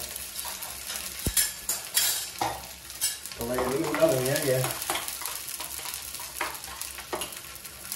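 Paneer pieces frying in desi ghee in a pan, sizzling steadily, with a spatula scraping and tapping against the pan now and then.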